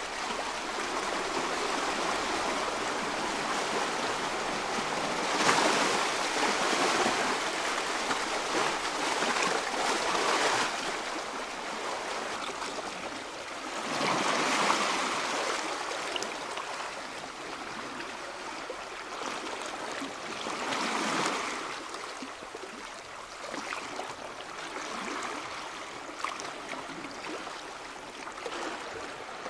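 Rushing water: a steady wash of noise that swells up three times and eases off again.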